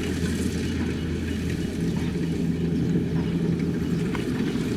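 Kubota DC-70 combine harvester's diesel engine and machinery running steadily, a constant low drone.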